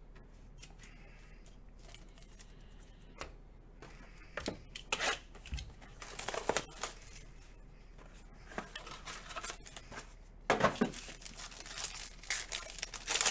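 Plastic wrapping on trading-card packaging being torn open and crinkled by hand, in irregular rustling bursts with clicks. The loudest bursts come about five seconds in and again about ten seconds in.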